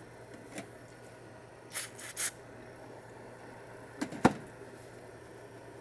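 Hand-work on a metal bench-top bearing tester: a few short scraping hisses, then a click and a sharp knock about four seconds in, over a faint steady hum.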